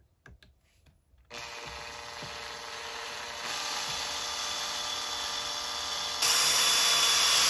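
Cordless drill fitted with a 1.5 mm bit, drilling a small pilot hole into an airsoft rifle receiver. The drill motor starts up about a second in and runs steadily, stepping up in loudness twice and ending at its loudest.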